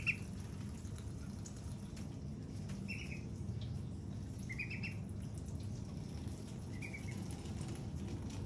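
Young white ducks peeping in short, quick high trills, four times, over a steady low hum.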